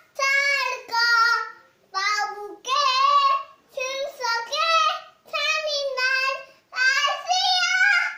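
A young girl singing unaccompanied in a high child's voice, a run of short phrases with brief breaths between them.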